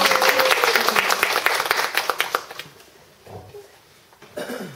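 A small audience clapping, dense and fast, dying away about two and a half seconds in. A voice calls out briefly near the start, and only faint murmurs follow.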